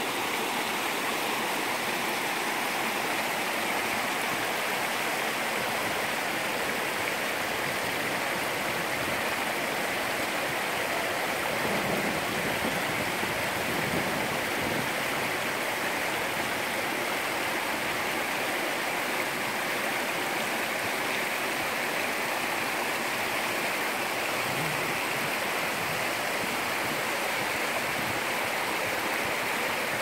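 Mountain stream running over rocks and small cascades into a shallow pool: a steady rush of flowing water.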